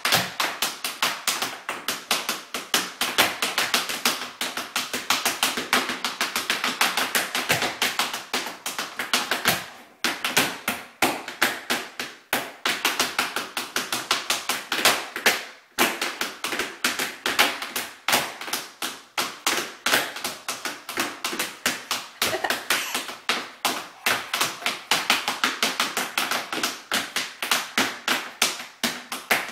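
A child's tap shoes clicking on a hardwood floor in a tap dance: fast, uneven flurries of taps with brief pauses about ten and sixteen seconds in.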